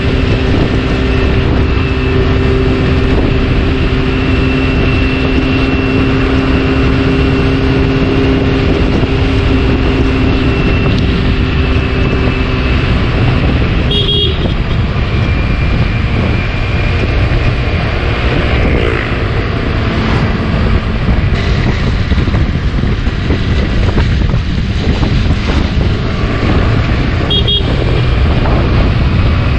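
Motor scooter riding along the road: steady wind rush on the handlebar-mounted action camera's microphone over the engine and road noise, with a steady hum that drops away about halfway through. Two brief high horn toots, one about halfway through and one near the end.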